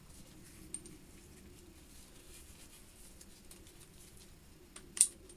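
Small steel vise parts being handled in a metal tray: a few faint clicks and one sharper metallic click about five seconds in, over a low steady hum.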